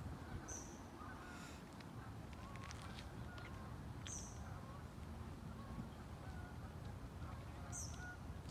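Geese honking faintly, a scatter of short calls, with a small bird giving three short high chirps and a low rumble underneath.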